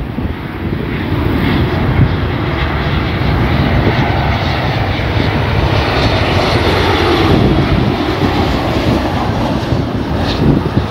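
WestJet Boeing 737 jet airliner flying low overhead on its landing approach with gear down. The jet engine noise builds to its loudest about six to seven seconds in, then eases off a little.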